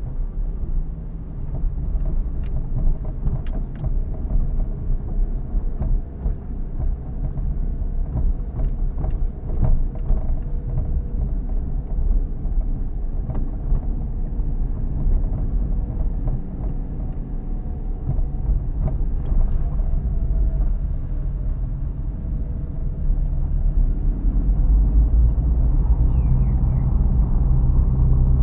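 Car driving on the road: a steady low rumble of engine and road noise with a few short knocks. The engine grows louder near the end.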